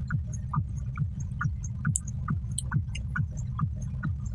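A steady low hum with a soft, regular thudding pulse, a little over two thuds a second.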